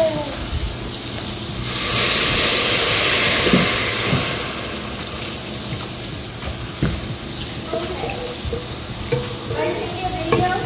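Liquid poured into a pan of rice toasting in oil for risotto, hitting the hot pan with a loud sizzling hiss for about two seconds. It then settles into quieter sizzling as a wooden spatula stirs the rice, knocking the pan a few times.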